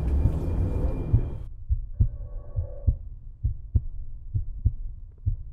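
Heartbeat: low thumps in close lub-dub pairs, roughly one beat a second. The beat comes to the fore about a second and a half in, when a steady noisy rumble cuts off suddenly.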